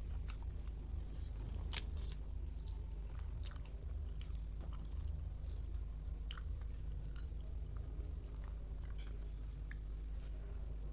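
Close-miked chewing of a rice-and-curry meal: wet mouth sounds with scattered small clicks and light crunches, over a steady low hum.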